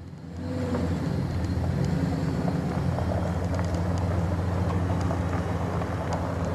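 2001 Dodge Ram 1500's 5.9-litre gasoline V8 running steadily as the pickup drives slowly, with a low, even engine hum that comes up about half a second in.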